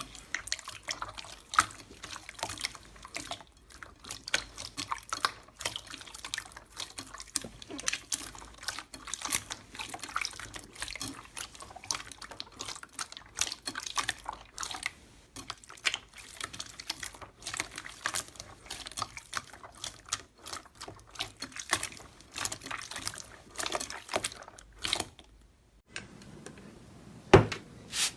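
Slime being squeezed and stretched by hand, making dense, irregular wet clicks and pops. Near the end it pauses briefly, then one sharper snap.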